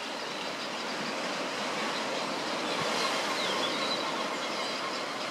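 Steady rushing background noise, with a few faint, high, falling bird chirps around the middle.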